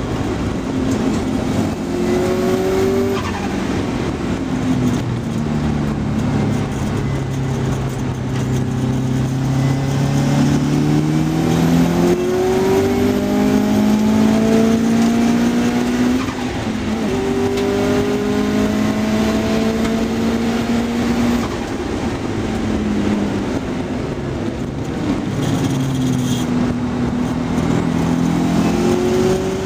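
Car engine heard from inside the car while it is driven hard round a race circuit, the engine note rising steadily and then dropping back several times as it accelerates, changes gear and lifts for corners, over steady road and wind noise.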